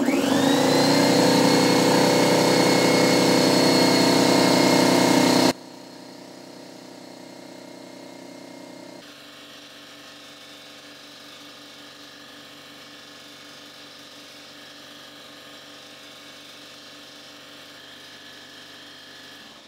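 Fortress 27-gallon oil-free air compressor starting up with an empty tank: a whine rises in pitch over about a second, then the compressor runs loud and steady. About five seconds in the sound drops suddenly and the running continues much quieter.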